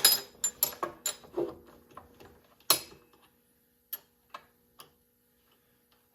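Sharp, irregular metal clicks and knocks from a chainsaw being handled while its chain is swapped, quick at first, then a few scattered clicks. A faint steady hum sits underneath.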